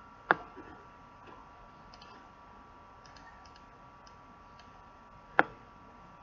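Two sharp computer mouse-button clicks about five seconds apart, with a few faint ticks between them and a faint steady whine underneath.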